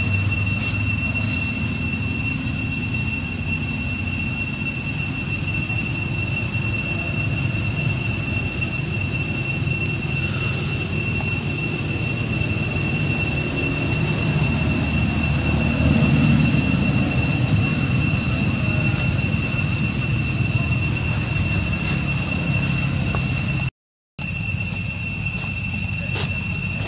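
Steady, high-pitched drone of cicadas, an even whine held throughout, over a low rumbling background noise. The sound cuts out for a split second near the end.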